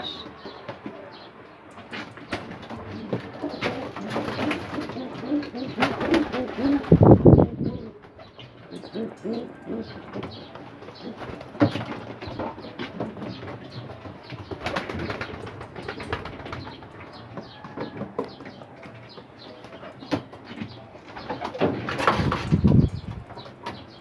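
Racing pigeons cooing in a loft, with wing flaps and handling rustle from a pigeon held in the hands. There are two louder thumps, one about seven seconds in and one near the end.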